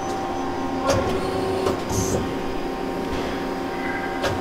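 Nakamura-Tome TMC-18 CNC turning center running, a steady machine hum with a couple of sharp clicks and a short high hiss about two seconds in.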